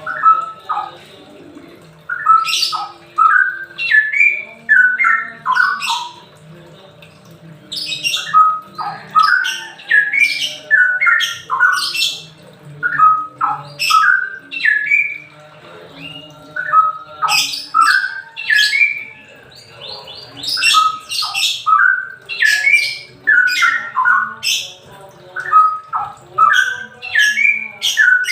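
Straw-headed bulbul (cucak rawa) singing loudly in the rapid 'semi ropel' style: a run of quick, rich notes that rise and fall, repeated phrase after phrase with short pauses between. This song style is used by keepers to stimulate birds that are reluctant to sing.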